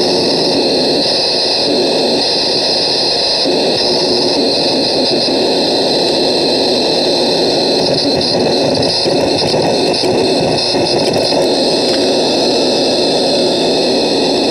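Homemade crystal-radio noise synth putting out loud, steady static-like noise, dense in the low and middle range with a brighter hiss above it. The hiss flutters and shifts in the second half as a hand works the wire contacts on top of the box.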